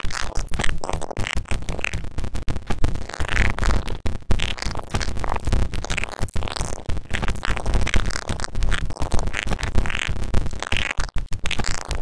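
Playback of a heavily processed audio clip with a chipmunk effect: sped-up, high-pitched, music-like sound mixed with vinyl-style noise, dense and choppy throughout.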